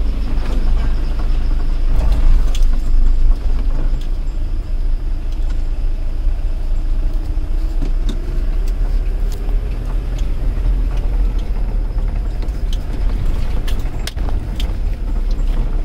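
Car interior noise while driving along a dirt track: a steady low engine and road rumble, with scattered knocks and rattles from bumps in the track.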